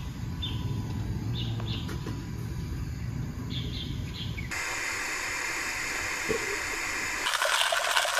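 Birds chirping in a few short calls over a steady low rumble. About halfway through the sound changes abruptly to a steady hiss, which grows louder near the end.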